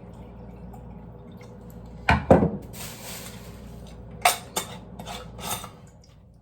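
A drink being mixed in a cup: two sharp knocks of a bottle against the cup, juice pouring for about a second, then four clinks.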